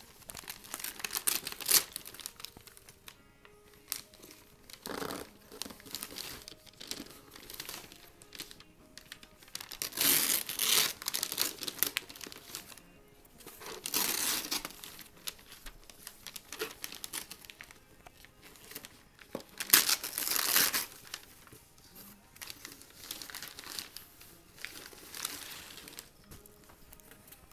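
Gift-wrapping paper and tissue paper crinkling and tearing as a small child pulls a present open, in irregular bursts of rustling; the loudest come about ten, fourteen and twenty seconds in.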